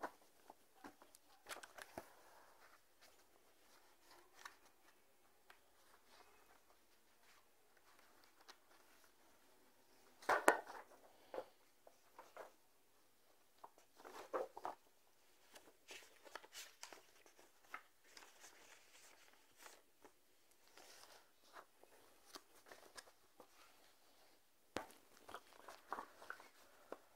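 Faint, scattered handling noises: small clicks, knocks and rustles of a person moving about and handling things close to the microphone, the loudest clusters about ten and fourteen seconds in and again near the end.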